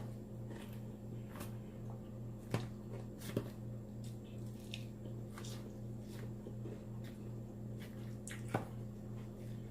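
Close-miked chewing of salad: irregular wet, crisp mouth clicks and crunches, with a few sharper ones, over a steady low hum.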